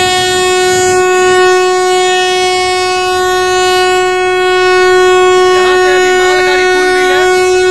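Electric locomotive horn of a departing goods train sounding one long, steady, unbroken blast on a single note.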